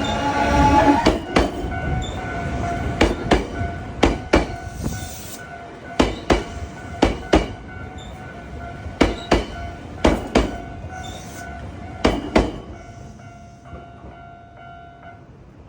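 A train rolls slowly through a station-yard level crossing, its wheels clacking in pairs over the rail joints about every one to two seconds. A steady ringing tone runs underneath, which is the crossing's warning bell. The clacks stop about two-thirds of the way in, and the ringing carries on after them.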